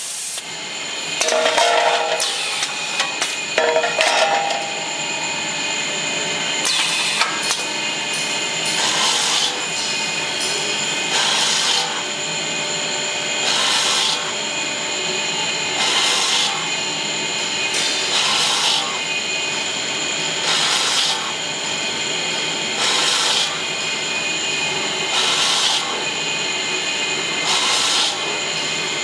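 Automatic brake lining drilling machine running through its work cycle: a steady mechanical din with a short, harsh burst of drilling noise about every two and a quarter seconds. Irregular clanks come in the first few seconds.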